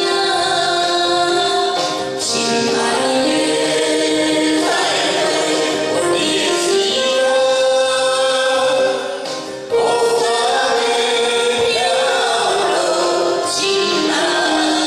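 A man and a woman singing a duet into handheld microphones over a karaoke backing track.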